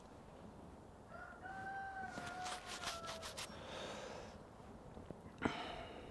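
A rooster crowing once, faintly: one held call of about two seconds that tails off, with a few light clicks over its end. Near the end comes a single sharp click or knock, the loudest sound.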